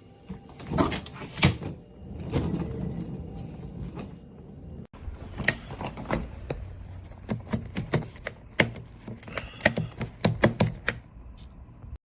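Hard-shell suitcases being handled: irregular knocks, clicks and rattles. The sound breaks off abruptly about five seconds in, then comes back with a quicker run of clicks and knocks.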